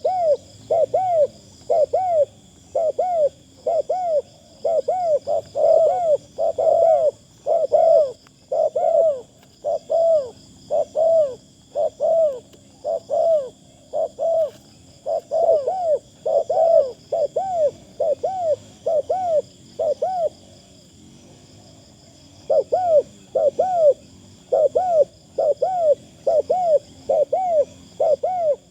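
Spotted dove cooing: a long run of short, arched coos, about two a second, with a break of about two seconds roughly two-thirds of the way through before the cooing resumes.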